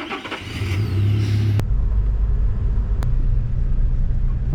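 A car driving, a steady low rumble of engine and road noise that changes abruptly about one and a half seconds in. There is a single sharp click about three seconds in.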